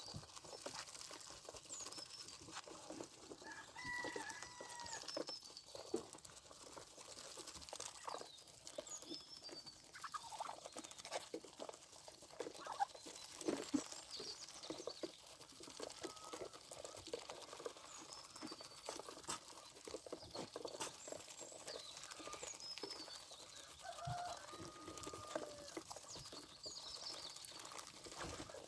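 Chickens clucking at intervals among many short taps and clicks, with small birds chirping high in the background.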